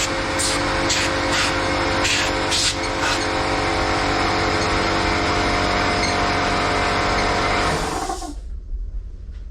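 Air blower running, blowing dirt and debris off a Briggs & Stratton lawn mower engine: a steady rush of air over a motor's hum, with several short louder blasts in the first three seconds. It shuts off about eight seconds in.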